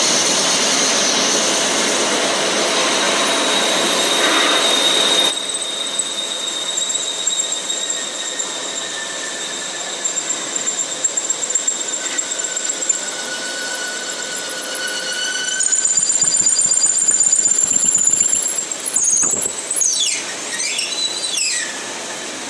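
High-pitched squeal of metal being machined: several steady whistling tones over a rough grinding noise, changing abruptly about five seconds in and sliding up and down in pitch near the end.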